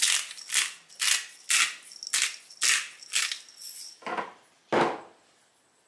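Hand-twisted pepper grinder grinding over a bowl of food, eight crunchy strokes at about two a second. Near the end two duller, lower thumps.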